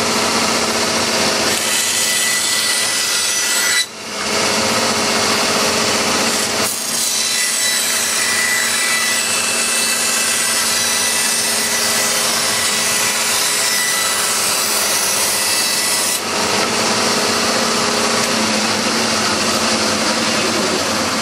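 Power tool cutting away the plastic of a moulded orthotic shell, running steadily, dipping briefly about four seconds in and again a few seconds later.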